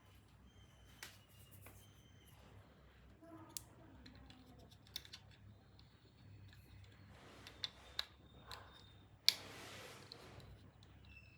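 Scattered light clicks and scrapes of hand work. About nine seconds in comes a sharp knock, followed by roughly a second of hiss.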